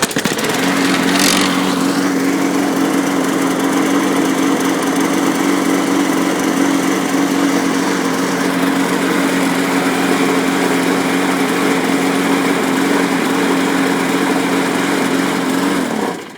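Craftsman 6.5 hp Ready Start push mower's small single-cylinder engine catching on a pull and running at a steady speed. It shuts off near the end and winds down. The engine is still burning off old oil that had filled it when a plugged air filter starved it of air.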